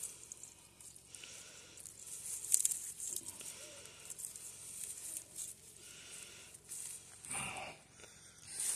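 Rustling and crinkling of a Christmas wreath's evergreen boughs and ribbon being handled and arranged close to the microphone, with a brief louder sound about seven seconds in.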